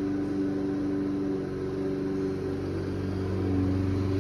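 Small petrol lawnmower engine running steadily.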